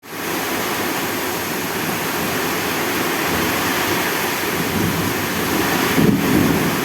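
Steady rushing noise of water, with a brief swell about six seconds in.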